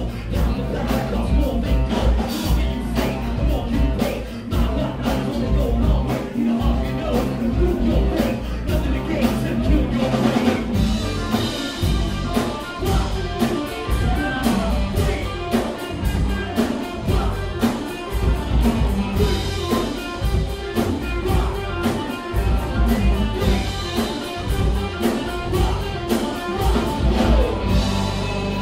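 A live rock band playing loud: a drum kit keeps a steady beat under electric guitars and bass guitar, with a singer's amplified vocals over the top.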